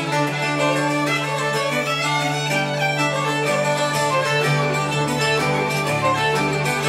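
Irish traditional jigs played live on uilleann pipes, fiddle, bouzouki and guitar. A steady low drone holds under the fiddle and pipe melody, with bouzouki and guitar strumming the jig rhythm.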